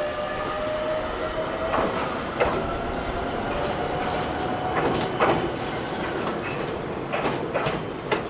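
Ichibata Electric Railway electric train (car 1003) moving off slowly: a steady motor whine rising gently in pitch as it gathers speed, with wheels clacking over rail joints and points, a few sharp clacks about two and five seconds in and a quick run of them near the end.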